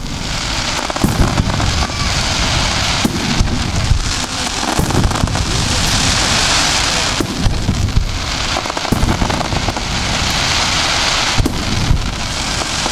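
Aerial fireworks: repeated shell bursts with deep booms, under a continuous dense crackling from glittering stars that swells twice, about midway and again near the end.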